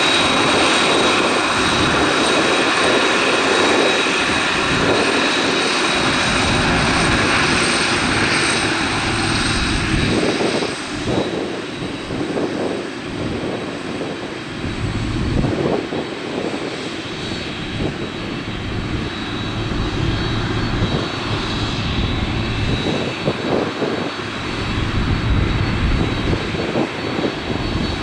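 Boeing 767-300ER airliner's jet engines running loud, with a steady high whine over a broad rush, easing off about ten seconds in to a quieter, lower rumble.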